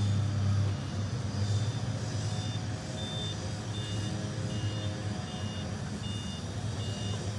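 A motor vehicle's engine running steadily, with a repeating electronic beep that alternates between two pitches, about two beeps a second, starting about a second and a half in.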